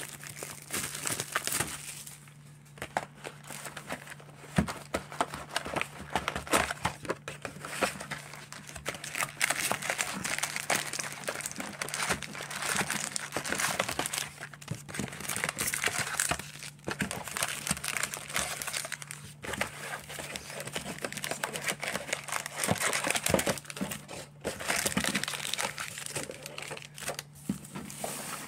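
Plastic shrink-wrap being torn and crumpled off a hobby box of trading cards, crinkling unevenly with scattered knocks as the box is opened and its packs handled. A faint steady low hum runs underneath.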